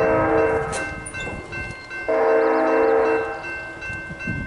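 Union Pacific diesel locomotive's air horn blowing for a grade crossing, a chord of several notes held together. One blast ends about half a second in; after a gap another begins about two seconds in and lasts nearly two seconds. A low rumble from the approaching train runs underneath.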